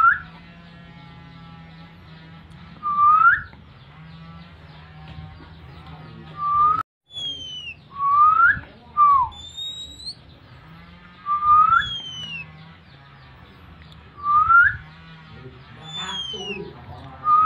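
Oriental magpie-robin (kacer) giving a loud, clean rising whistled call note about every three seconds, with a few shorter falling whistles in between: the calling of a bird in breeding condition.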